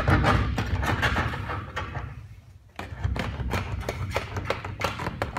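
Tank liner being cut through with a long knife and handled: irregular clicks and scrapes over a low rumble, with a short lull and a sharp click about two and a half seconds in.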